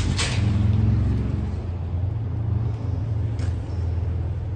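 Large engine idling with a steady low rumble. There is a sharp click just after the start and another about three and a half seconds in.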